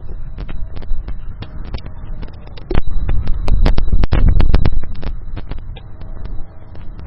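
Crackling static from a microphone: rapid irregular clicks and pops over a low rumble, growing much louder for about two seconds from just under three seconds in. The static comes from the rear microphone, which the owner believes is being overdriven.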